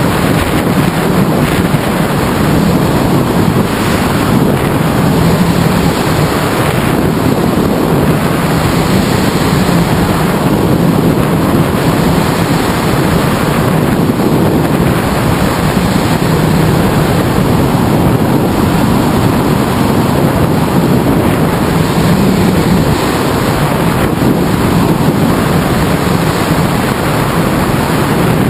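Steady, loud rush of airflow buffeting the microphone of a hang glider in flight.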